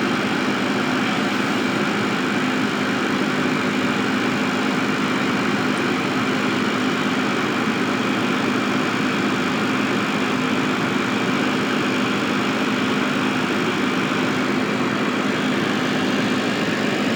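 Steady machine noise: an even rushing hiss with a constant low hum, unchanging throughout.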